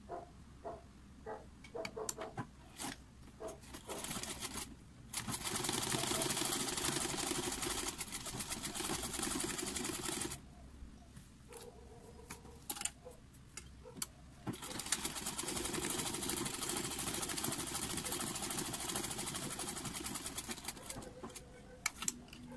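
Black vintage sewing machine stitching a zipper seam in two runs of several seconds each: a fast, steady clatter of the needle mechanism. Slower separate clicks come at the start, between the runs and near the end, as the handwheel is turned and the fabric repositioned.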